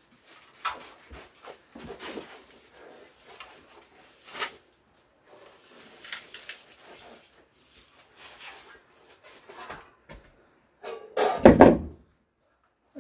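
A strip of 1 mm sheet steel being bent by hand around a car tyre used as a former, with scattered scrapes, rustles and light knocks. About eleven seconds in comes the loudest sound, a thump and rattle of the sheet.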